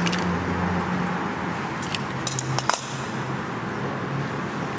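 A few light clicks and taps from hands handling tools against a PVC skirting board, the sharpest about two and a half seconds in, over a steady background hum.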